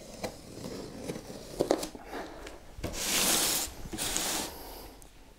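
A large cardboard box being handled: a few knocks, then two loud scraping rushes a little over three and four seconds in as the box is swung round on a tiled floor.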